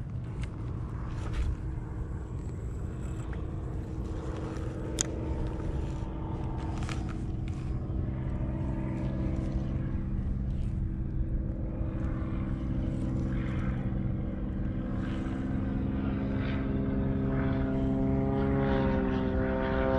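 Propeller aircraft engine droning steadily overhead, growing louder toward the end as its pitch rises slightly.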